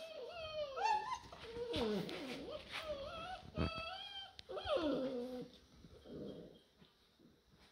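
American Staffordshire terrier × American bulldog puppies whining and yelping in high cries that rise and fall, with a couple of sharp knocks among them, quieting after about five seconds.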